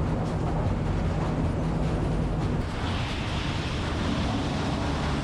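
Diesel truck engine running at low speed while the truck is eased into its final position; about two and a half seconds in the engine's low hum drops and a steady hiss comes in.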